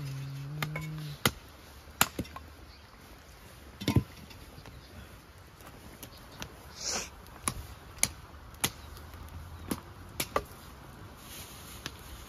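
Wood fire crackling: about a dozen sharp pops and cracks at irregular intervals over a low steady background.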